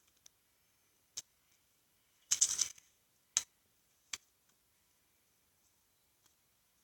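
A few separate sharp clicks in near quiet, with a short rustling, scraping burst about two and a half seconds in that is the loudest sound.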